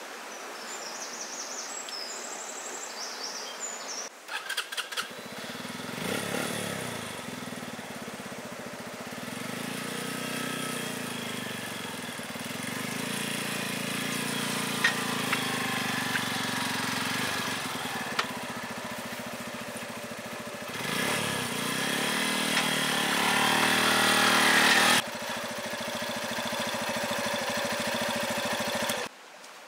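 Motorcycle engine starting about five seconds in and running steadily. Around twenty seconds in the revs rise and fall as the bike is worked up onto the carrier, and the engine cuts off suddenly near the end.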